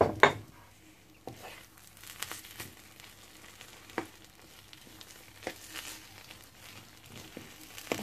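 Metal spoon stirring and mashing soft, cooked mung beans and sugar in a metal pan, with scattered clinks of the spoon against the pan. The loudest two clinks come right at the start.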